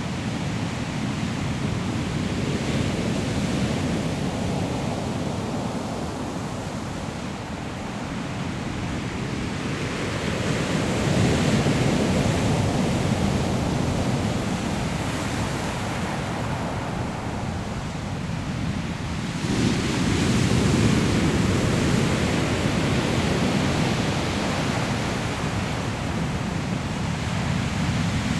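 Sea waves breaking on a pebble shore: a continuous rush of surf that swells three times, roughly every eight to nine seconds.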